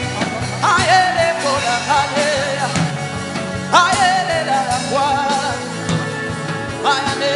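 Background worship music with a steady beat and a long, wavering melody line that starts afresh about three times.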